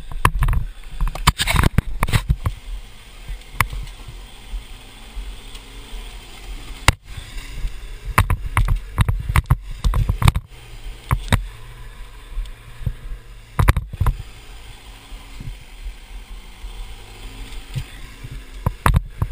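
Handling noise from a camera being carried over rocky ground: irregular knocks, bumps and clicks with wind buffeting the microphone. A 4WD's engine runs underneath.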